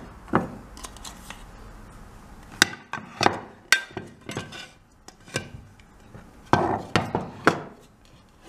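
Ceramic dinner plate and metal baking tin clinking and knocking together as the tin is turned over onto the plate to release the cake: about ten sharp knocks, with a quick run of three near the end.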